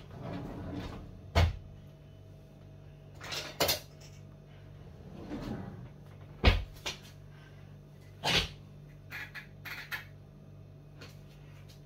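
Kitchen cupboard doors opening and knocking shut. Two sharp bangs come about five seconds apart, with lighter knocks and rattles in between, over a steady low hum.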